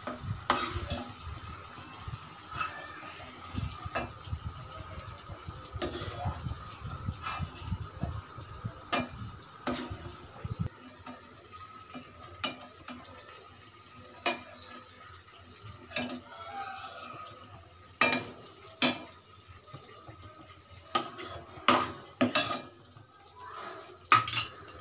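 A metal ladle scraping and knocking against an aluminium karahi as tomato paste is scooped out, with irregular sharp clinks and a faint sizzle of oil under it. A low rumble under the clinks stops about ten seconds in.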